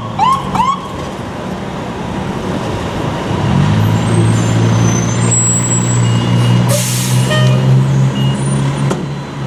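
Emergency siren giving three short rising whoops at the start. A fire-rescue truck's engine then runs steadily from about three and a half seconds in as it pulls out slowly, with a short air-brake hiss about seven seconds in.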